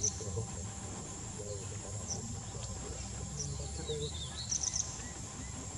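Forest ambience: a steady high insect drone, with a few short bird chirps scattered through it over a low background rumble.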